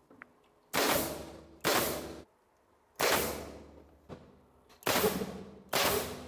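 Pneumatic nail gun firing five times, roughly a second apart, driving nails into wooden framing battens; each shot is a sharp crack that dies away over about half a second.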